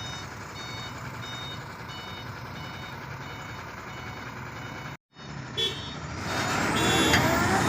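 A heavy diesel truck's engine labours under load while a reverse alarm gives a steady series of short beeps. After a brief break about five seconds in, the engine grows louder toward the end, with a rising whine.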